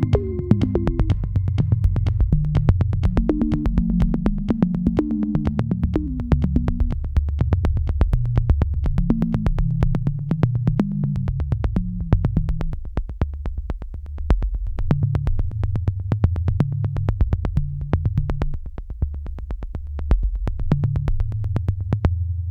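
Electronic background music: a synthesizer bass line over a steady, fast beat.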